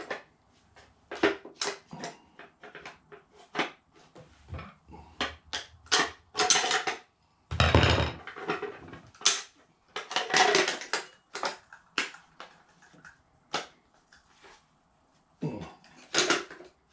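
Handling noise from a Mauser C96 pistol and its holster: irregular clicks, knocks and scrapes as parts are taken out, put in and fitted.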